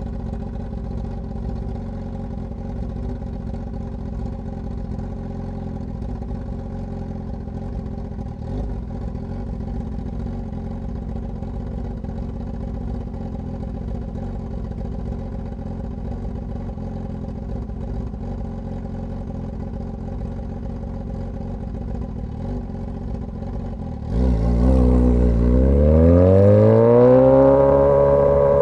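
Straight-piped Suzuki GSX-S1000 inline-four idling steadily. About four seconds before the end it gets much louder as the throttle opens and the bike pulls away, the pitch climbing, levelling off briefly, then climbing again.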